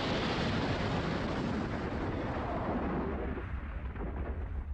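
Explosion and impact rumble of a jetliner crashing into swamp water. The dense roar holds steady, then dies away over the last second or so.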